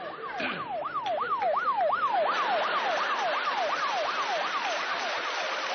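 Siren sound effect: a yelping wail sweeping up and down about three times a second, growing fainter in the second half, with a hiss of noise joining about two seconds in.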